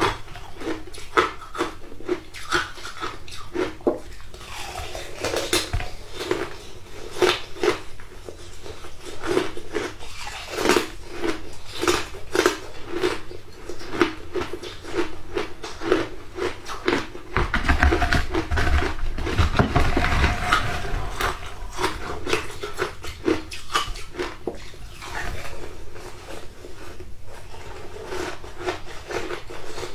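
Shaved ice being bitten and chewed, close to the microphone: a steady run of crunches, about two or three a second, with a louder, heavier stretch of chewing about two-thirds of the way through.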